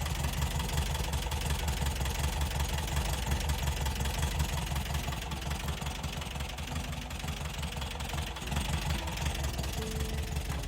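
1977 Volkswagen Westfalia bus's air-cooled flat-four engine idling steadily, just brought back to running after sitting.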